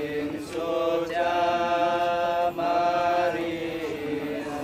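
Buddhist chanting: monks and mourners reciting together from chant books in long, held notes, with a brief break about halfway through.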